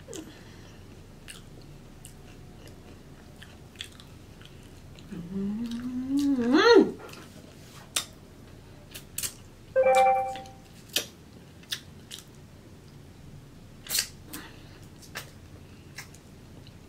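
Close-up eating sounds: wet smacks and clicks of chewing and of licking nacho cheese off the fingers. About a third of the way through comes one rising 'mmm' of enjoyment, and a short hum follows a few seconds later.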